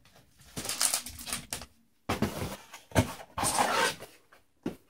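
Cardboard shipping box being handled: its flaps are pushed open and the contents rummaged. Irregular scrapes and rustles come with a sharp knock about three seconds in and a click near the end.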